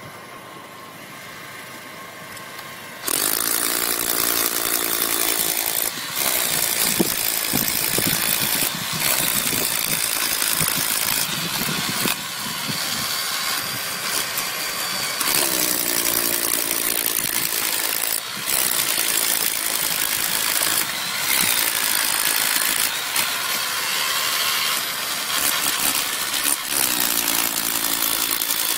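Electric drill with a long masonry bit boring anchor holes into asphalt through the mounting holes of a rubber speed hump. It starts about three seconds in and runs loud and nearly continuously, with several short pauses.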